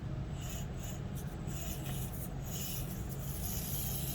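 Axial SCX24 micro crawler with a Furitek brushless motor and brass pinion crawling slowly: a steady low drivetrain hum under scratchy rubbing and scraping that comes and goes as it works over the course.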